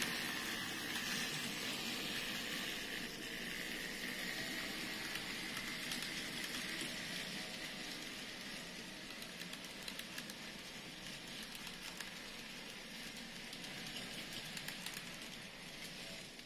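N scale model train running on the layout track: a steady whirring hiss from the locomotive motors and the wheels rolling on the rails, with a few faint clicks, slowly fading as the train moves away.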